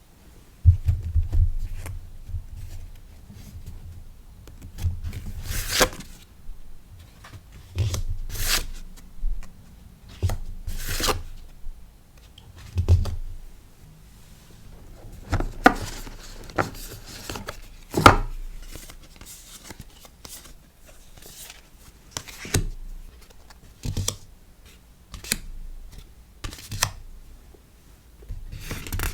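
Close-up sounds of stickers and packaging being handled and packed: irregular swishes, crinkles and sharp taps, a few of them louder strokes.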